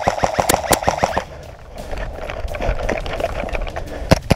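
An airsoft electric rifle firing on full auto, a rapid even string of shots over the motor and gearbox whine, cuts off about a second in. Near the end come a few single sharp shots from an airsoft pistol.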